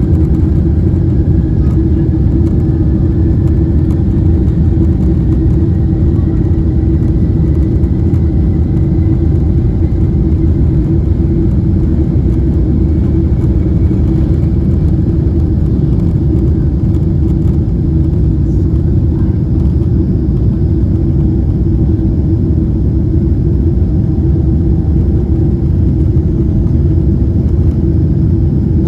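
A Boeing 777-300ER's two GE90-115B turbofans at takeoff thrust, heard from inside the cabin behind the wing: a loud, steady roar through the takeoff roll and liftoff. A faint whine rises slowly in pitch over the first half.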